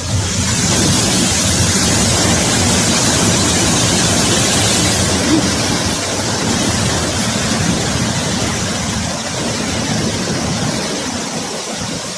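A loud, steady rush of fast-flowing floodwater, with some wind buffeting on the microphone.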